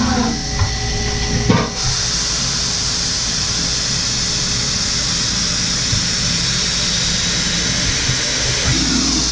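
Datron M8Cube high-speed CNC mill running with a small two-flute drill in the spindle: a faint steady spindle tone, and about two seconds in a loud, steady spray hiss from the machine's nozzles starts and holds.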